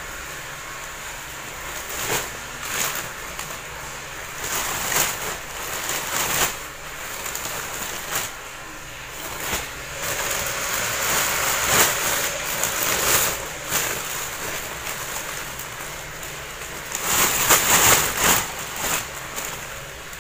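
Clear plastic bags and a plastic carrier bag crinkling and rustling as wrapped scrub uniforms are handled and pulled out, in uneven spells, loudest near the end.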